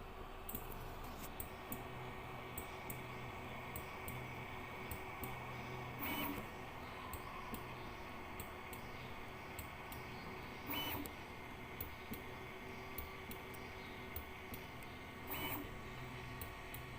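3D printer running a bed mesh calibration with a Klicky probe: the stepper motors hum in short on-off moves between probe points, with many short clicks throughout and three louder buzzing sounds about 6, 11 and 15 seconds in.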